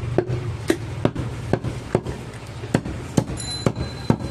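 Butcher's cleaver chopping through a goat carcass on a wooden chopping stump: a quick run of about nine sharp strikes, roughly two a second.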